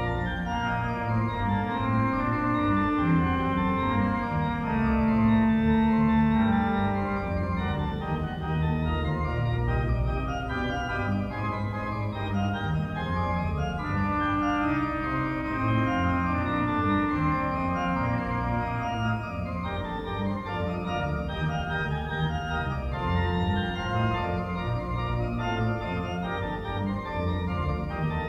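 Organ music: held chords that change every second or two, with a melody above and a bass line beneath.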